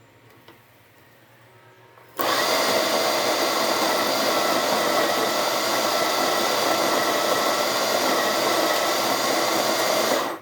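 Electric coffee grinder grinding beans: the motor starts suddenly about two seconds in, runs loud and steady, and stops abruptly at the end. The grounds are coming through slowly, which the user puts down to old coffee left in the grinder.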